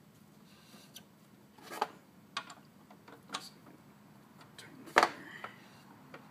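Hand-handling noise at a drill press: a few scattered, irregular light clicks and knocks as a tap held in the chuck is oiled and worked by hand, the sharpest knock about five seconds in.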